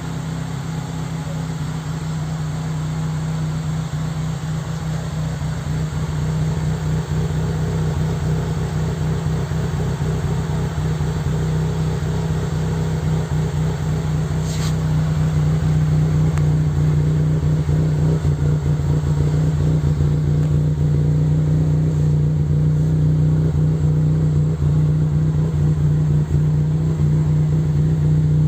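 Toyota 3S-GE BEAMS 2.0-litre inline-four engine running at a steady speed, its note holding one pitch and growing slightly louder over the first half.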